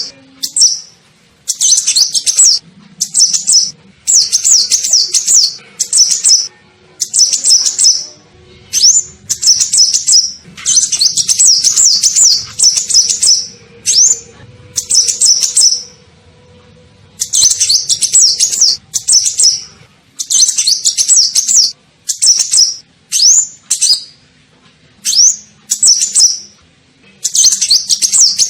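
Kolibri ninja sunbird song as used for a lure call: repeated bursts of rapid, high-pitched twittering chirps, each lasting about a second, with short pauses between them and a few single rising notes in the gaps.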